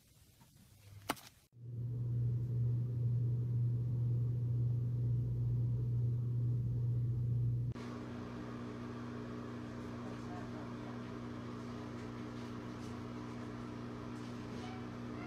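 A click, then a loud, steady low hum from about a second and a half in. About eight seconds in it changes abruptly to a quieter steady hum with two higher steady tones and a light hiss over it.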